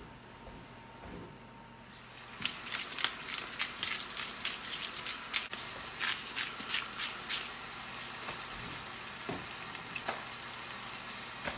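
Raw ground turkey frying in olive oil in a pan on a gas burner. About two seconds in, crackling and sizzling starts up as the meat is broken apart with a utensil, then settles to a steadier sizzle near the end.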